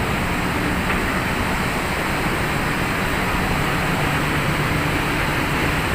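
Steady running machinery: an even roar with a low hum underneath.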